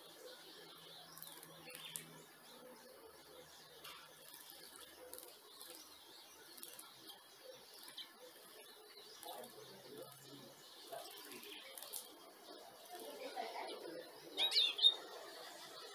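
Birds at a garden birdbath: a low background with scattered faint ticks and flutters, then near the end a short, loud bird call of quick sweeping notes.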